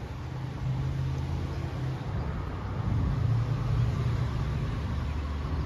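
Interstate highway traffic: a steady low rumble of passing vehicles, growing louder about a second in.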